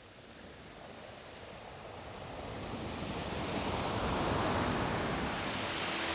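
A steady rushing noise with no distinct events, growing gradually louder throughout.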